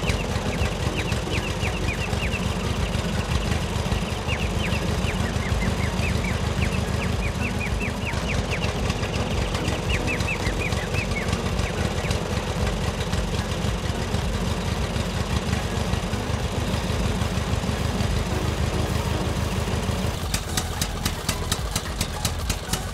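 Tractor engine sound chugging steadily with a fast, even knocking beat. Short high chirps sound over it in the first half, and sharper rhythmic clicks join near the end.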